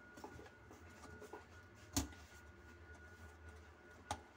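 Hands working on the plastic drain pipe fittings under a sink: faint handling ticks, a sharp click about two seconds in and a smaller one near the end, over a low steady hum.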